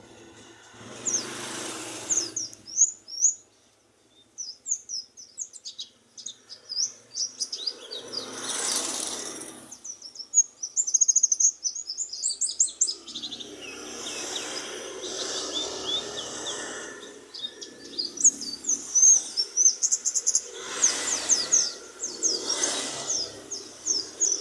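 White-eye (pleci) singing vigorously in rapid runs of high, thin chirps and trills, with a few brief rushes of noise over the song.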